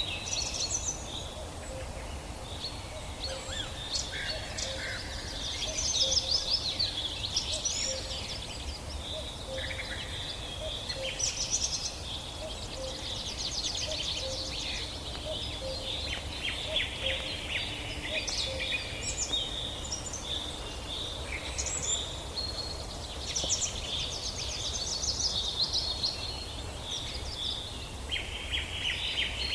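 Forest bird chorus: several birds singing and calling at once, with overlapping chirps, rapid trills and short whistles, over a steady low background hiss.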